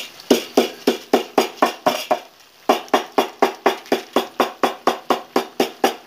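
Background music with a percussion beat of sharp, evenly spaced strikes, about four a second, pausing briefly about two seconds in.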